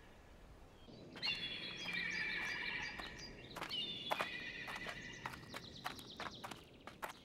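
A horse whinnies twice, each a high call held for over a second. A run of short, sharp knocks follows in the second half.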